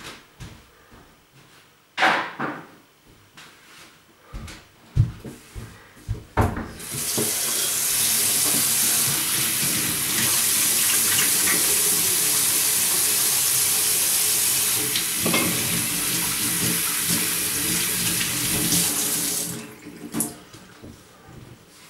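A few knocks and clatters, then a water tap runs hard into a sink in a steady rush for about thirteen seconds and is turned off abruptly, followed by a click.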